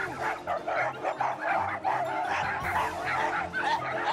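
Several leashed small dogs, among them a dachshund, barking over one another in a continuous stream of overlapping barks: leash-reactive barking on a walk.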